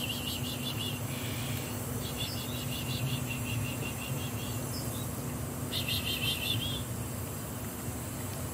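Rapid, high-pitched chirping trills in three bouts of one to three seconds, each at several pulses a second, over a steady low hum.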